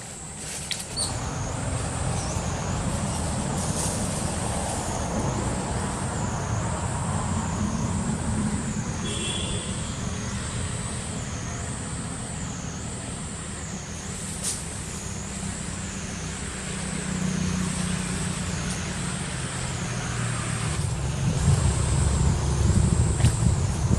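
A motor vehicle's engine running, a low rumble that grows louder near the end, over a high whine that rises and falls about once a second.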